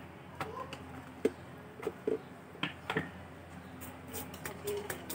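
Scattered light clicks and taps of kitchen utensils being handled while cooking, irregular and coming more often in the last second or so.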